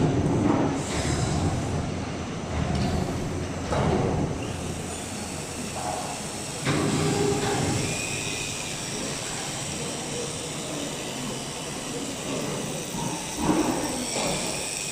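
Industrial panel edge-cutting machine running: a steady machine noise with a faint high whine, rising in several louder surges of a second or so.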